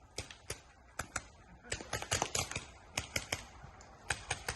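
Paintball markers firing: scattered sharp pops at uneven intervals, with quicker flurries about two and three seconds in.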